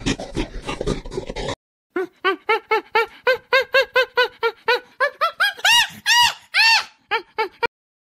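A primate calling: a rapid run of short rising-and-falling hoots, about four a second, climbing in pitch and growing louder toward the end. Before it comes a second and a half of crackling noise.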